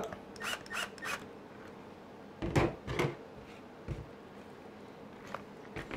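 Handling knocks and clunks as a large RC monster truck is turned over and set on the tabletop: a few light taps early on, two louder knocks a little past two seconds in and a dull thump near four seconds.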